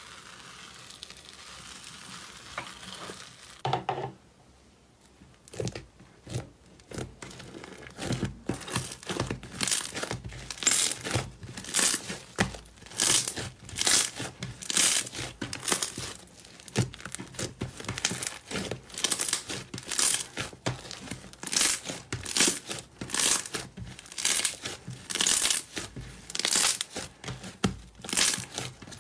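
Slime being worked by hand: first a soft, steady crackle as fingers press into foamy slime in a tub, then from about eight seconds in a long run of short crackling squishes, about one a second, as a large lump of slime is squeezed and kneaded.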